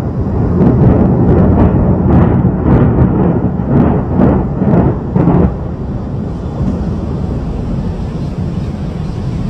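Controlled demolition of a high-rise tower: a deep rumble with a rapid series of sharp cracks, about two a second, which stops about five and a half seconds in. After that a steady, lower rumble carries on.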